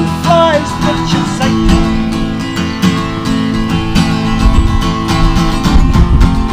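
Acoustic guitar strummed in a steady rhythm, played live with no singing: an instrumental stretch of a song.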